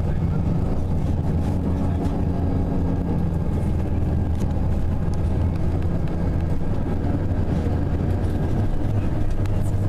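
Tour coach's engine and road noise heard from inside the passenger cabin while the bus drives, a steady low drone.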